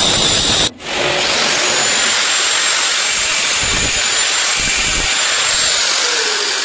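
Handheld angle grinder cutting stone at a kitchen counter edge: a loud, hissing grind with a steady high motor whine. The whine drops in pitch near the end as the grinder slows.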